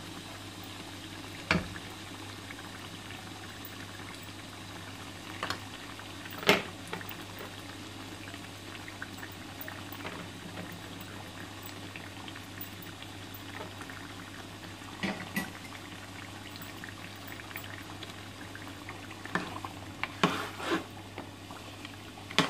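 Mutton curry gravy bubbling steadily as it simmers in a pot, with a few sharp clicks and knocks of a metal ladle against the pot as it is stirred, a cluster of them near the end.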